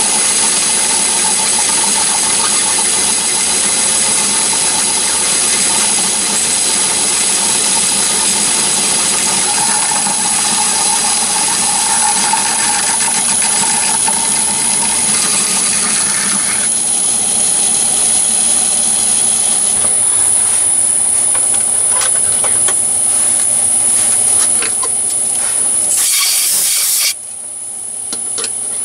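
Myford ML7 lathe running under power with a carbide tool taking a turning cut on the spinning bar stock: a steady mechanical whir with hiss. Near the end a short loud hiss comes, then the sound cuts off suddenly.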